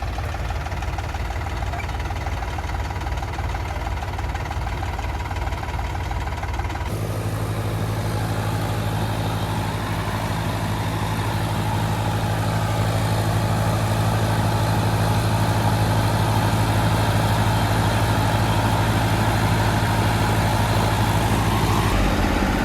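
Heavy diesel engine of earthmoving machinery running steadily. About seven seconds in its sound changes suddenly and gets fuller and louder, as with the engine under more throttle or load.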